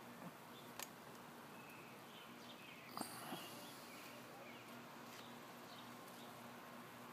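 Quiet outdoor background with faint bird chirps now and then. A few light clicks stand out, the sharpest about three seconds in.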